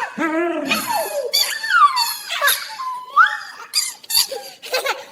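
Baby giggling and squealing in a string of short bursts, with high squeals that slide down and then up in pitch.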